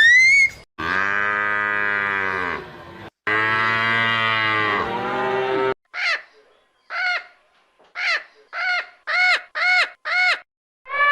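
A cow mooing: two long, low moos. These are followed by a run of about eight short, higher calls from another animal, each one brief and separated by short silences.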